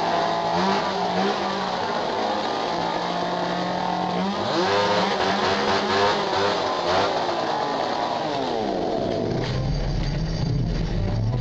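A chainsaw engine revving up and down over and over, its pitch rising and falling. About eight seconds in it winds down, and low steady notes take over near the end.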